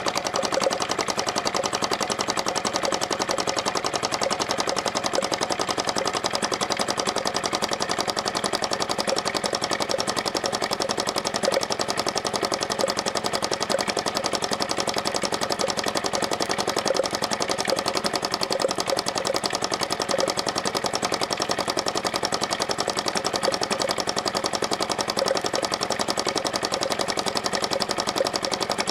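Self-built model flame-eater (hot-air vacuum) engine running steadily: a rapid, even run of sharp knocks, almost like a small diesel.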